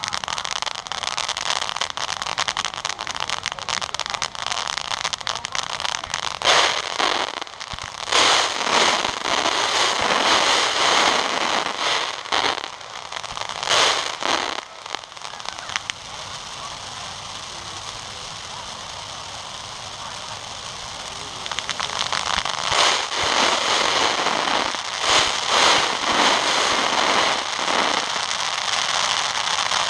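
Fireworks going off at close range: a continuous hiss and crackle, with louder surges of dense crackling about six to fifteen seconds in and again from about twenty-two seconds on.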